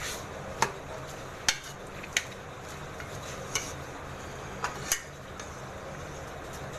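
Metal ladle stirring chicken pieces, tomatoes and onions in a large wok, knocking against the pan about six times at uneven intervals with a soft scraping between.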